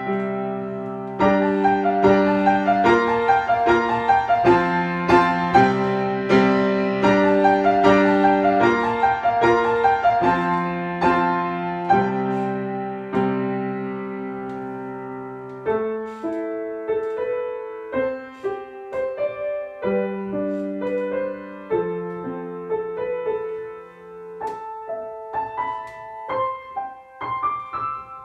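Piano music: full, struck chords at first, thinning to a sparser, quieter melody about halfway through.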